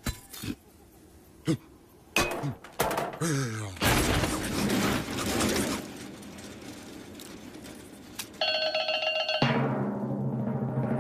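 Animated cartoon soundtrack of sound effects and music: a few sharp clicks, a cartoon cry falling in pitch, then a loud rushing noise lasting about two seconds. Near the end come held musical tones, first a high ringing tone and then a low chord.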